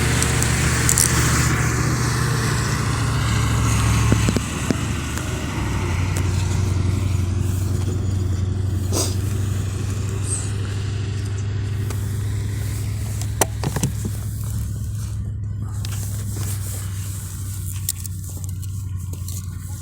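Motorcycle engine running steadily under way, with wind and road hiss over it. The engine note shifts about four seconds in, and a few sharp knocks come later.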